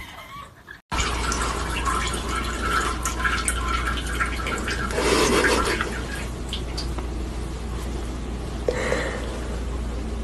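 Liquid trickling and dripping into a toilet bowl as a cat urinates on the toilet, over a steady low hum. It starts abruptly about a second in and swells twice.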